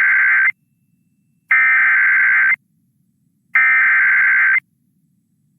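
Emergency Alert System SAME header: three bursts of digital data tones, each about a second long with a second's silence between them. The first burst is already under way at the start and cuts off about half a second in.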